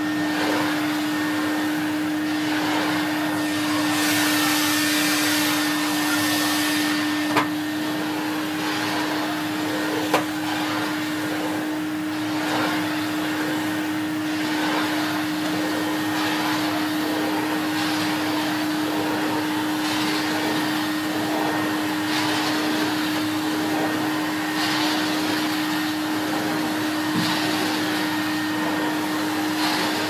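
Numatic Henry HVR200A 1200 W cylinder vacuum cleaner running with a steady motor hum and rush of air, its floor tool pushed back and forth over carpet so the suction noise swells and fades every couple of seconds. Two brief clicks a third of the way in.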